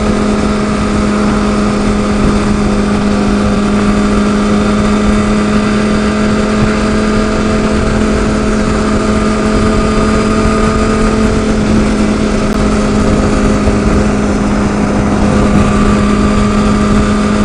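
A 2007 Honda CBR600RR's inline-four engine holding a steady cruise at highway speed, heard through a helmet-mounted intercom microphone. A constant rush of wind noise runs under the engine note.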